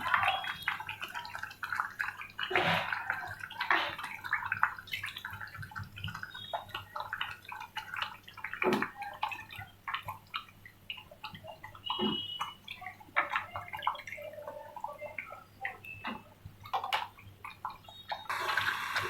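Water splashing and dripping in irregular short bursts as chopped sponge gourd is washed and handled, with scattered clicks and knocks.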